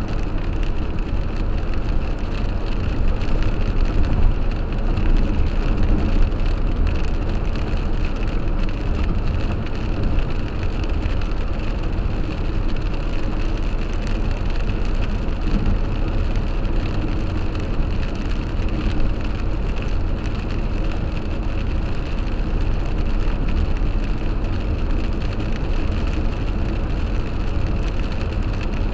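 Steady road and engine noise heard from inside a car driving at highway speed, tyres hissing on wet pavement, with light rain spattering on the windshield.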